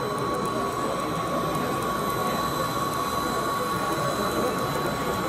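Busy exhibition-hall background: indistinct chatter of many people under a steady, constant high hum.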